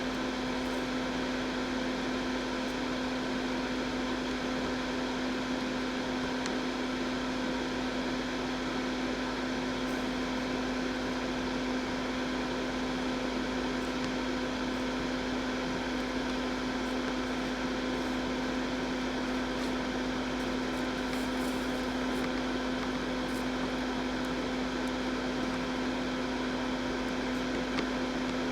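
Steady hum of a small electric fan running, with a constant tone, and a few faint ticks here and there.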